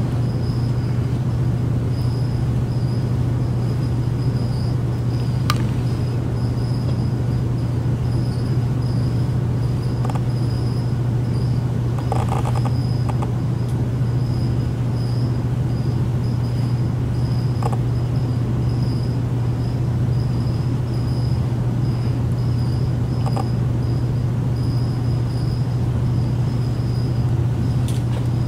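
Steady low machine hum, unchanging in level, with a faint pulsing high whine above it and a few faint ticks.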